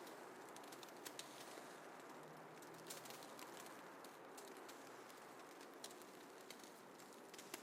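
Faint, steady hiss of snowfall ambience with scattered soft ticks and crackles.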